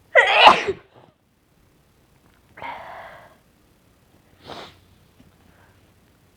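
A woman's induced sneeze, one loud, short burst of voice and breath just after the start, followed by two softer breathing sounds a couple of seconds apart.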